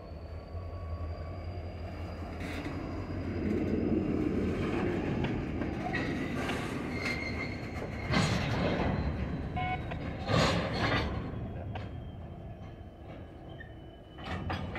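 Freight cars, an open-top hopper and a tank car, rolling slowly past on yard track over a low rumble, with a faint, thin, high wheel squeal held for most of it. A few sharp clunks and knocks come about eight and ten seconds in.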